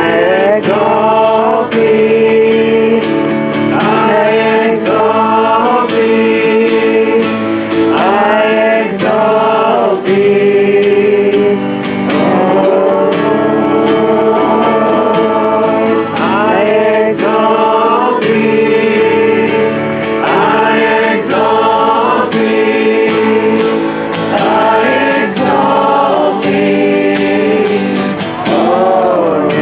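A group of voices singing a soft gospel song together, with acoustic guitar accompaniment.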